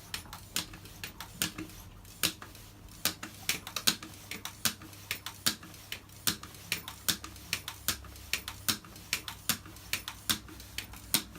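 Manual tyre pump worked stroke after stroke to inflate a motorcycle inner tube, giving a fast, uneven run of sharp clicks, about three or four a second.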